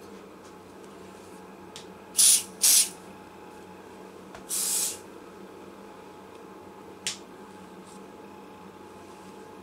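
Spray bottle spritzing onto a guitar finish repair: two short sprays about half a second apart, then a slightly longer spray about two seconds later. A small click follows near the end.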